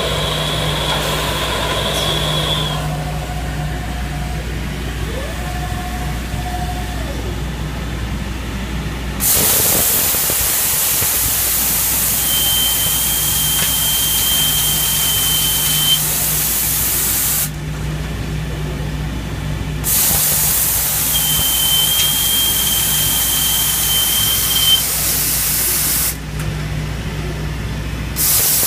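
Kinetic K5000 drilling machine drilling a 1-inch hole in 2-inch steel plate. Under a steady machine hum, motors whine briefly as the head positions. About nine seconds in a loud spraying hiss switches on, with a high steady whine over it. The hiss cuts out twice for about two seconds and starts again.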